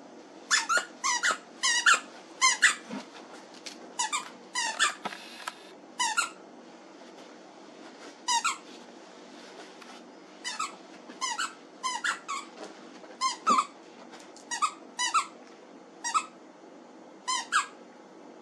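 Rubber squeaky toy squeaked over and over as a dog chews it: about two dozen short, high squeaks in irregular runs, several in quick succession and then a pause.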